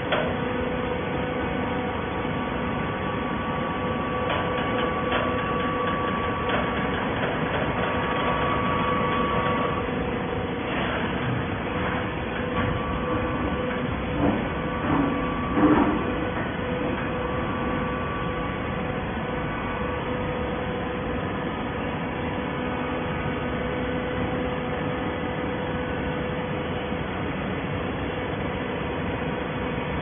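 Horizontal hydraulic baler running: a steady machine hum with held tones from its hydraulic power unit, and a few short clanks from the press about halfway through.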